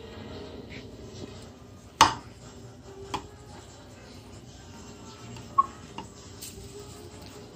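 Metal knife clinking against a glass baking dish while cutting baked chicken: one sharp clink about two seconds in, the loudest, then fainter clinks near three seconds and a short ringing ping and click between five and a half and six seconds, over low room noise.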